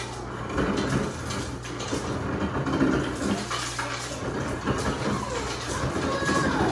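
Wet splashing and dripping as a plastic slotted spoon scoops soft jelly noodles and tapioca pieces out of their syrup into a small glass.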